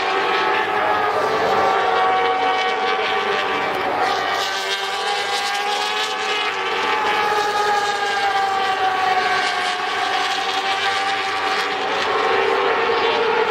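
MotoGP racing motorcycles running at speed past the trackside. Their engine notes are loud and continuous, sliding down and back up in pitch over several seconds.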